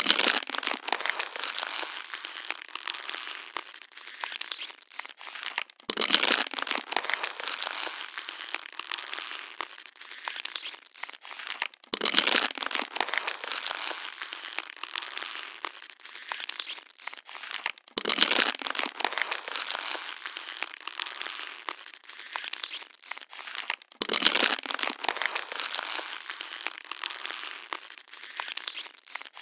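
Plastic water bottle being crushed and squeezed: continuous crinkling and crackling of thin plastic, with a louder burst of crackles about every six seconds as the pattern repeats.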